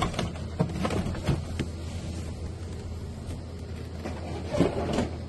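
Packaging being handled: scattered light clicks and rustles in the first second and a half and again near the end, over a steady low hum.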